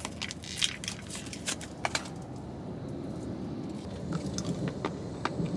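Plastic-foil candy sachet crinkling and tearing as it is pulled open by hand: a quick run of sharp crackles in the first two seconds. After that, a few faint clicks near the end as the candy goes into the mouth, over a low steady rumble inside the car.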